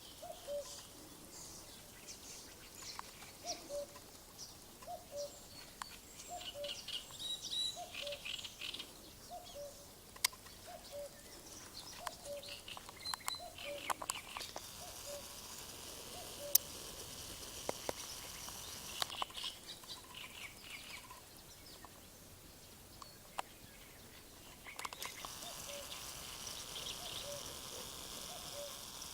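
Birds singing and chirping by a river, with stretches of high, steady trilling. Under them a soft low note repeats about once a second.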